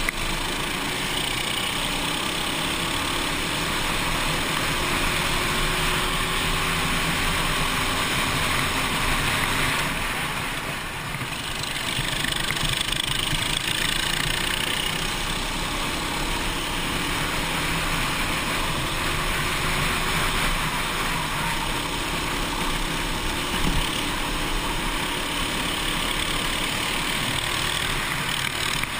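Go-kart engine running at racing speed, recorded from a camera mounted on the kart, with wind and road noise and the engine note rising and falling with the throttle.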